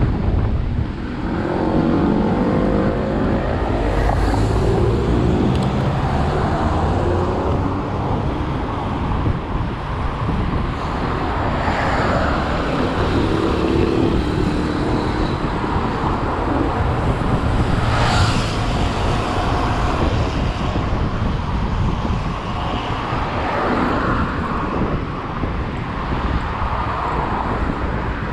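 Steady road-vehicle rumble with wind on the microphone, with engine tones rising and falling a few times.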